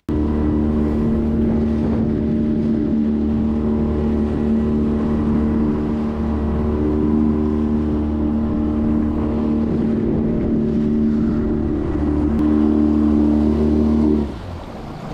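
Yamaha outboard motor running steadily at cruising speed, a loud even engine drone. It drops off sharply about a second before the end.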